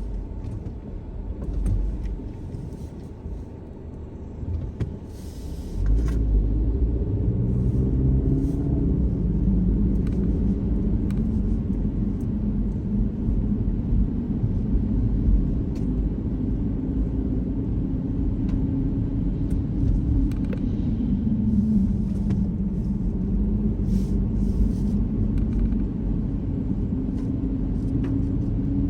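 Car on the move: engine and road rumble, louder from about six seconds in, with the engine note climbing slowly at times as it picks up speed.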